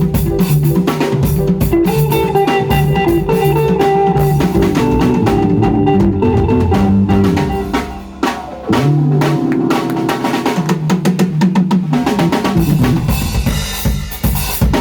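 Band playing an African groove during a sound check: a drum kit with bass drum, snare and rimshots over sustained pitched bass and melody notes. The music drops out briefly about eight seconds in.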